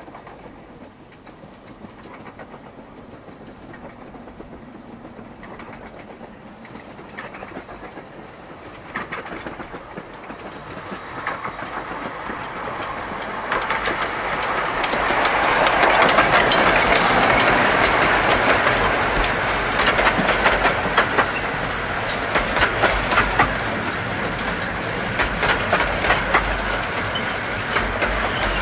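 A 15-inch gauge miniature steam locomotive and its coaches approach and pass close by, growing louder until they are loudest about halfway through, with a hiss at the peak. The coaches' wheels then click rapidly over the rail joints as they roll past.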